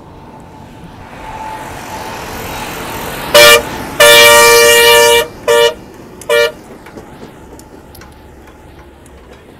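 Tata dump truck driving past, its engine and tyre noise growing louder, then its horn sounds four times: a short blast, a long blast of about a second, and two more short blasts.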